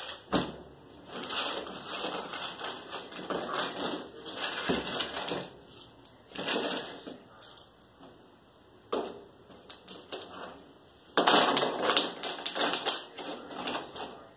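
Small pebbles clattering and rattling as they are poured and shifted by hand in a flower pot, in irregular bursts with quiet gaps. The loudest burst comes about eleven seconds in.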